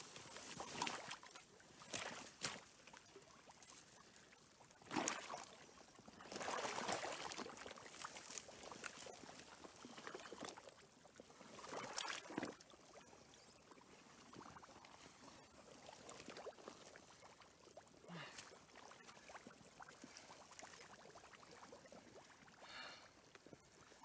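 Shallow creek water splashing and sloshing in irregular bursts as someone in waders steps through it and kneels in the mud.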